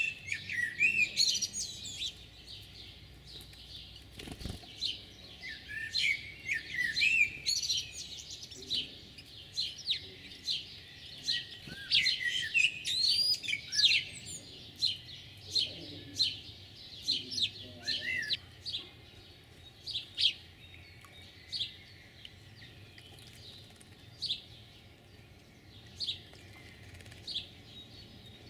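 Small songbirds chirping and calling. The first half holds quick, curving chirps, and the second half settles into short, sharp single chirps about once a second. A single dull thump comes about four seconds in.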